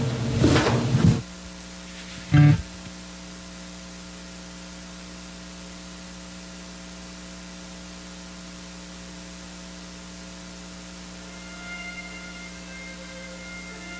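Steady electrical mains hum with several overtones, left after a louder sound stops about a second in. There is one short loud blip about two and a half seconds in, and faint high notes near the end.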